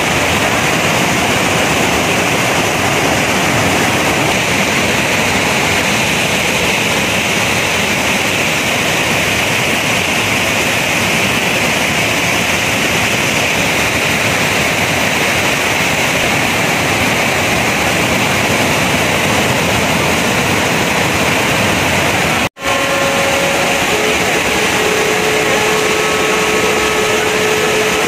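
Steady roar of a large waterfall crashing onto rocks close by, a dense rush of white water. It cuts out for an instant about three-quarters of the way through, then resumes.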